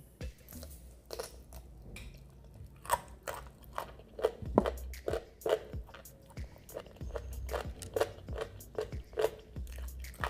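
Close-up chewing and crunching of crispy deep-fried chicken: irregular crisp crunches, a few a second.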